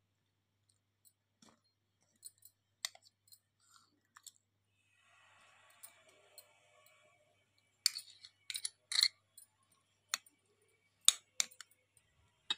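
A metal spoon stirring a wet spice paste in a glass bowl: scattered clicks and a soft scrape, then a run of louder clinks against the glass from about eight seconds in.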